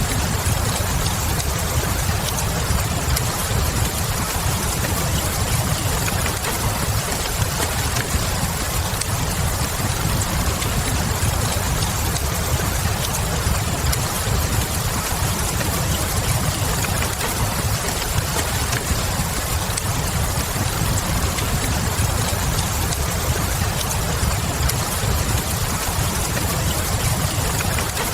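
Steady rain with a low rumble underneath, and the small scattered pops of a crackling wood fire.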